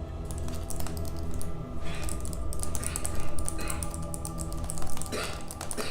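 Rapid computer-keyboard typing, a quick run of light clicks, over soft background music.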